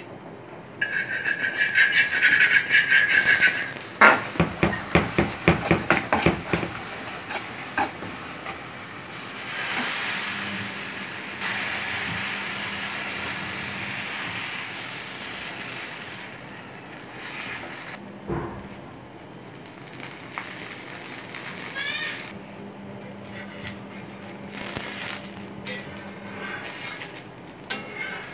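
Cooking at an iron dosa tawa: first a rattle and a quick run of clicks and clatters, then from about ten seconds in a long steady sizzle as uthappam batter cooks on the hot tawa, broken by a single sharp knock of a utensil.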